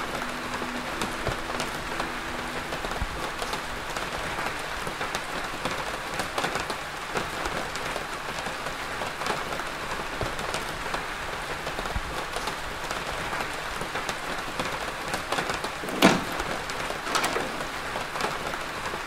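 Steady rain falling, a continuous hiss, with one sharp, loud crack late on.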